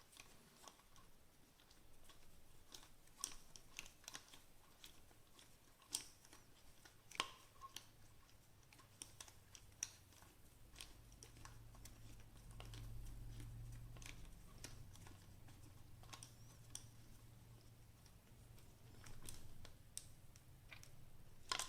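Faint, scattered clicks and ticks of a hex key driving the screw that holds an AR-15 pistol grip, metal tool on the screw and small handling of the rifle and grip. A faint low hum rises in the middle and fades again.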